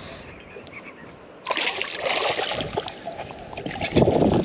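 Hooked smallmouth bass splashing at the water's surface, starting about a second and a half in with a run of quick splashes and getting louder near the end.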